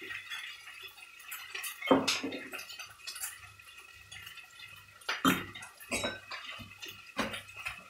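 Thick curry sauce simmering in a pan, with a few irregular bubbling pops and plops over a faint steady hum.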